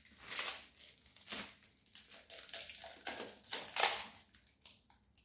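Plastic and paper packaging rustling and crinkling in a string of short bursts as a set of cups is unwrapped by hand, the loudest a little under four seconds in.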